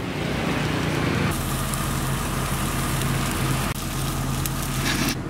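Fish grilling on a wire grate over a charcoal stove, a steady sizzling hiss, with a steady low motor hum underneath. The hiss brightens abruptly about a second in and shifts again near the end.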